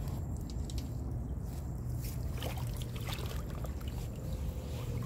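Water sloshing and splashing as hands work under the surface of a shallow swamp, the splashes coming more often in the second half, over a steady low rumble.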